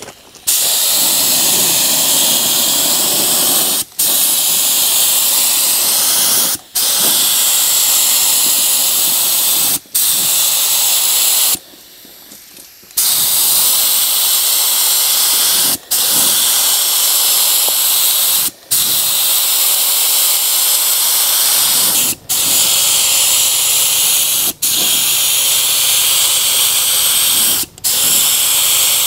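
DeVilbiss StartingLine HVLP spray gun with a 1.8 mm tip spraying catalysed primer, run wide open. It gives a loud, steady air hiss in passes of about three seconds, cutting off briefly between passes, with one longer pause about twelve seconds in.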